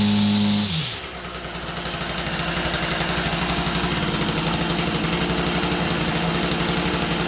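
Stihl FS45 string trimmer's small two-stroke engine revving high, then dropping to idle about a second in as the throttle is released. It settles into a steady idle with an even, rapid firing pulse, running after a cold start with the choke off.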